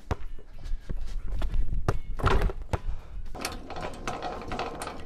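Basketball bouncing and thudding on an asphalt court, several separate thumps with the loudest about two seconds in, followed by a steadier rattling sound.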